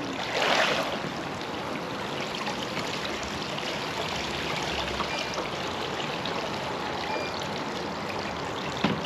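Water trickling and splashing steadily, with a brief louder splash about half a second in and a short knock near the end.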